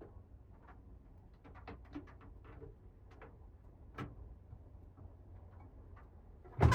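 Controls of a Hoover Visiondynamic washing machine clicking as the programme selector dial is turned and buttons are pressed: a quick run of faint ticks about a second and a half in, then a few single clicks, the sharpest one about four seconds in.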